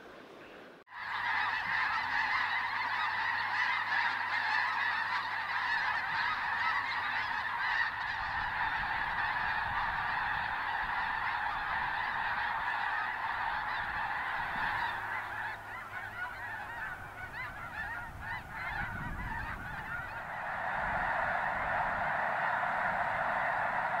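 A huge flock of snow geese calling all at once, a dense, continuous clamor of honks that starts suddenly about a second in. It thins a little past the middle and swells again near the end.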